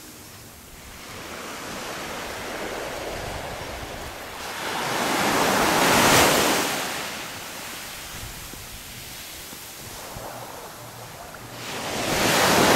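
Small waves washing up on a sandy beach. The surf swells to a peak about six seconds in and rises again near the end.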